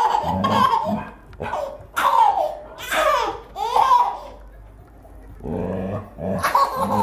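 A baby laughing in a string of short bursts, with a brief pause about two-thirds through before another run of laughter near the end.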